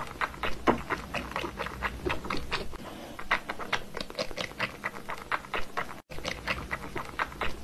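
Orange tabby cat suckling from a plastic feeding bottle's teat: quick, wet mouth clicks and smacks, several a second, in an uneven rhythm.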